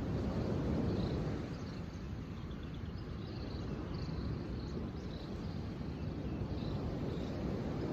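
Outdoor nature ambience: a low rushing noise that swells and eases, with faint, short high chirps repeating throughout.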